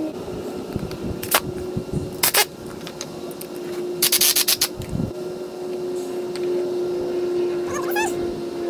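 Power drill with a 1/8-inch bit running steadily, pre-drilling pilot holes in wood so the screws won't split it, with a few sharp knocks and a short rattling clatter about four seconds in.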